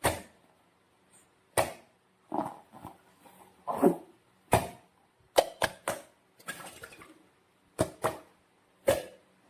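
Slime being handled and squeezed: about a dozen short, sharp squishes and clicks at irregular intervals, with brief quiet gaps between them.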